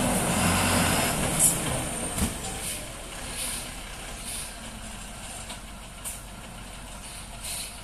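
Diesel engine of a heavily loaded multi-axle lorry running hard for about the first two seconds, then easing to a quieter steady run. Short hisses of air from its air brakes come several times, roughly every second or two.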